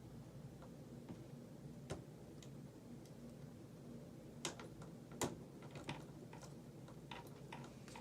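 Faint, irregular light clicks of a hook pick working the pin stack of an Abus 72/40 padlock, with the lock sitting in a false set; the clicks come singly, a second or so apart, more of them in the second half.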